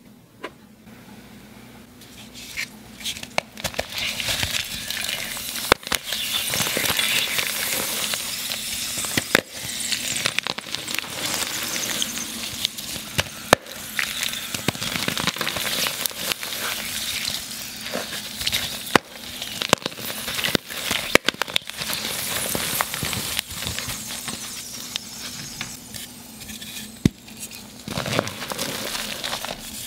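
Blocks of dyed gym chalk being crushed and crumbled by hand into a bowl of water: dense crackling with sharp snaps here and there, starting about two seconds in.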